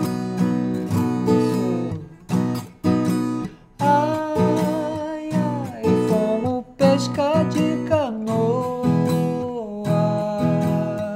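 Viola caipira strummed in the cururu rhythm, with several sudden short breaks where the strings are damped. A voice sings the verse over it.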